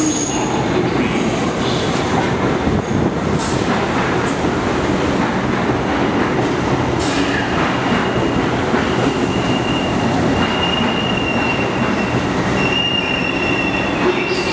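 Bombardier R62A subway train pulling into an underground station: a loud, steady rumble of wheels on rail with a few sharp clacks. A thin, high squeal sets in about halfway through and holds as the train runs along the platform.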